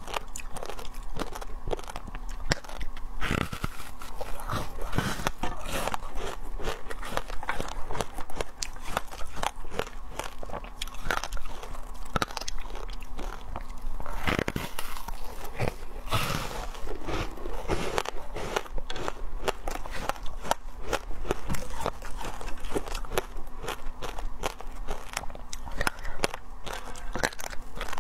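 Foam ice being bitten and chewed: a dense run of crisp crunching and crackling bites.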